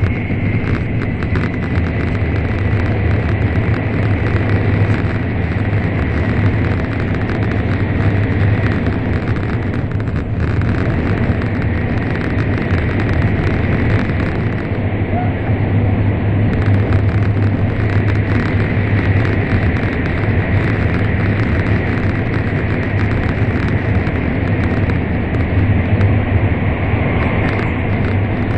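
Running noise of an N700 series Shinkansen at speed heard inside the passenger cabin: a loud, steady rumble with a strong low hum. The train is in a tunnel.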